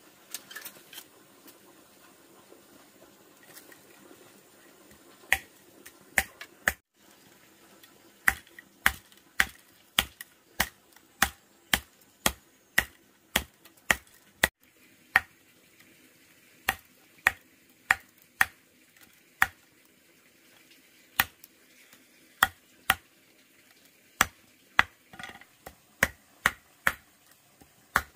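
Machete blade chopping through bamboo strips against a wooden board, trimming the ends of a woven bamboo panel. It is a run of sharp knocks about every half second with short pauses, starting about five seconds in.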